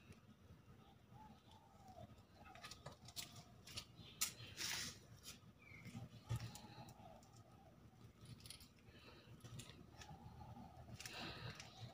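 Faint, scattered clicks and snaps, with faint wavering bird calls in the background.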